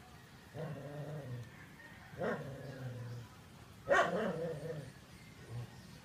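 An animal calling four times in drawn-out, low-pitched cries; the second and third start sharply, and the third, about four seconds in, is the loudest.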